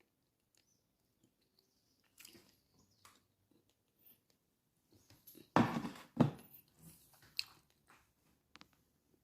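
Close-up chewing of grilled pork: soft, scattered mouth clicks, with two louder, brief noises a little past halfway.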